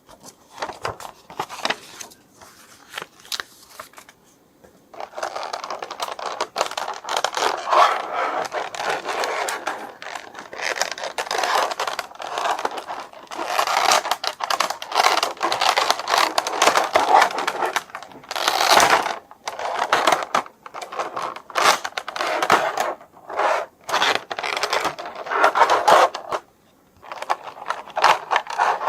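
Toy packaging being handled and opened while an action figure is unboxed: scraping and rustling in irregular bursts with short pauses, one sharper burst a little before halfway.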